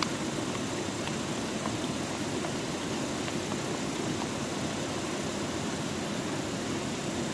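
A steady low rushing noise, with a few faint clicks of a metal spoon stirring batter in a ceramic bowl.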